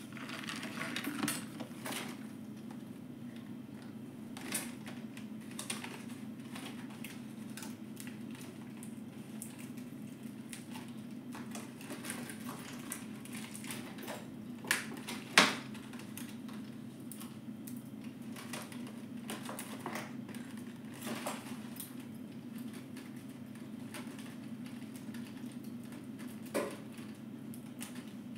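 Hands handling small objects and packaging at close range: scattered light clicks and taps, with one sharper click about fifteen seconds in, over a steady low hum.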